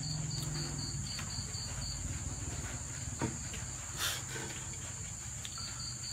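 Crickets chirping: a rapid pulsed chirp, about five a second, stops about a second in and starts again near the end, over a steady high insect trill. A couple of soft knocks are heard midway.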